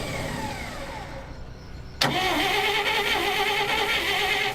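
Starter motor of a 1959 Dodge D-300 truck cranking the engine: a falling whine fades out in the first second and a half, then steady cranking with a wavering pitch starts suddenly about two seconds in and cuts off sharply near the end. It is a test crank with the first starter solenoid bypassed, to check that the starter no longer keeps cranking after the key is released.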